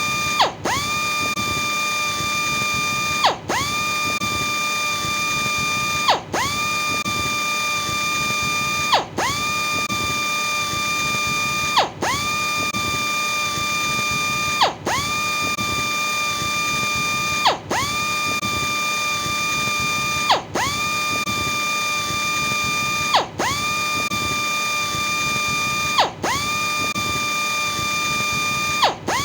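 Electric power sander's motor running at speed with a steady high whine. About every three seconds the sound briefly dips and the pitch sags, then spins straight back up, in an even repeating cycle.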